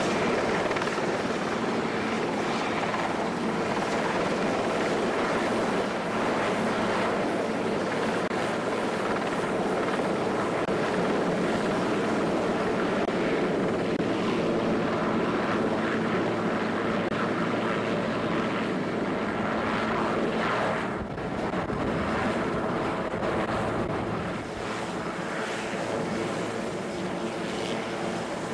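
Sea King helicopter's turbine engines and main rotor running steadily as it flies low over the water and settles onto it, a dense continuous rotor and engine noise with a steady hum. About three-quarters of the way through the sound changes abruptly and drops slightly.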